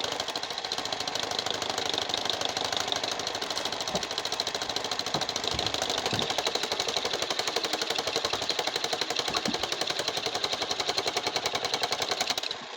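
Car engine being cranked over by the starter in a long, steady, fast rhythmic clatter that cuts off shortly before the end, the engine not catching.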